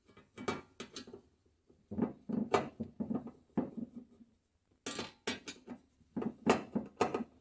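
Hand screwdriver driving screws into a steel TV wall-mount bracket: irregular metallic clicks and scrapes as the screws turn and the bracket pieces shift against each other.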